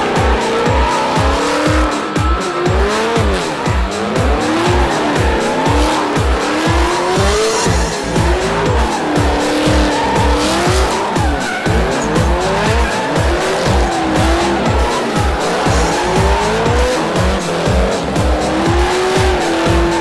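Drift cars sliding in tandem, their engines revving up and down again and again and tyres squealing, over music with a steady thumping beat.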